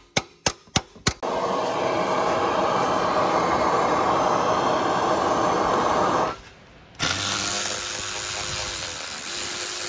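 A hammer strikes a bolt extractor on a seized, rusted turbo stud a few times in quick succession. Then a power tool runs for about five seconds, stops for a moment, and runs again, turning the extractor to back the stud out.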